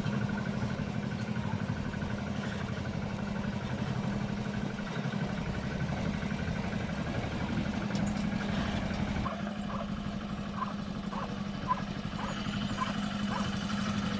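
The single-cylinder diesel engine of a patpat, a two-wheel-tractor farm vehicle, running steadily under way. From about the middle on, short high chirps repeat roughly twice a second over it.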